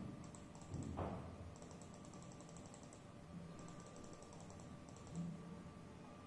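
Faint computer keyboard and mouse clicking while a web page is reloaded over and over, in quick runs of light taps, with two louder soft knocks in the first second.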